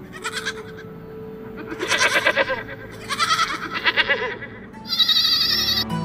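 Domestic goats bleating, four separate wavering calls, followed near the end by a higher, wavering sound.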